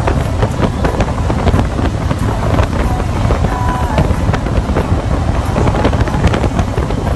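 Harley-Davidson Electra Glide touring motorcycle cruising at road speed: its V-twin engine running steadily under heavy wind rush and buffeting on the microphone.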